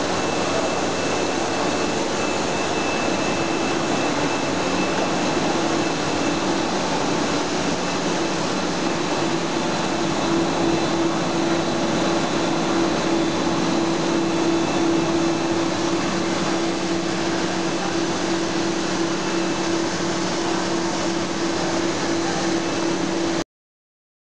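PVC profile extrusion line running in the factory hall: a steady mechanical rushing noise with a constant low hum in it, growing a little stronger about halfway through and cutting off suddenly near the end.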